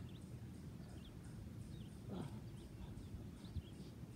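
Faint outdoor ambience: small birds chirping in short scattered calls over a steady low rumble, with one longer falling call about two seconds in.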